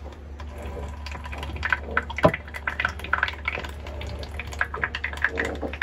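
Old engine oil siphoned out of a Yanmar diesel, dripping and spattering irregularly into the plastic tank of a hand-pumped oil change pump.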